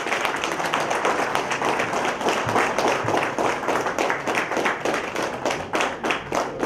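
Audience applauding: many people clapping steadily as a guest is welcomed onto the stage.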